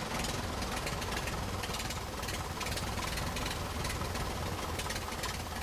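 Lycoming IO-390 four-cylinder aircraft engine idling low, at about 550 to 600 rpm, heard from inside the cockpit. It runs steadily but a little rough at this low idle.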